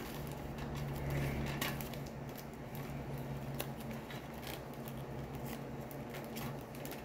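Faint crackling and small clicks of a cracker biscuit being broken and crumbled by fingers on a metal plate, over a steady low hum.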